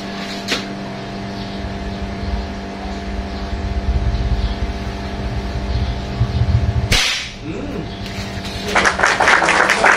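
A single sharp airgun shot about seven seconds in, over a steady motor hum and a low rumble that swells before the shot. About two seconds later a dense crackling like applause begins.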